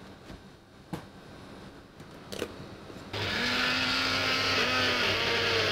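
Personal bullet-style blender, its cup set upside down on the motor base, starting about three seconds in and running steadily as it blends chopped shiso leaves and olive oil into a thick puree. Before it starts there are a couple of sharp clicks as the blade lid is fitted and the cup is seated on the base.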